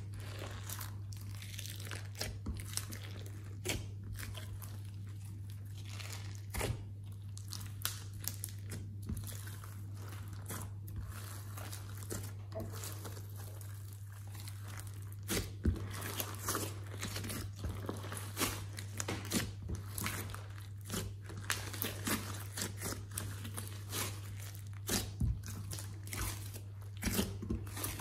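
Glossy slime being stretched, folded and squeezed by hand with sequins, glitter, beads and clay mixed in, giving sticky crackles and clicks. The clicks come thicker and louder from about halfway through.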